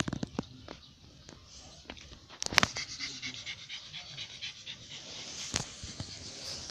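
A dog panting quickly and steadily, with a few sharp clicks and knocks, the loudest about two and a half seconds in.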